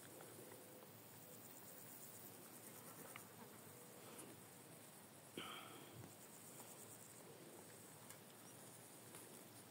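Near silence with faint, steady, high-pitched chirring of insects such as crickets or grasshoppers, and one brief sharp sound about five seconds in.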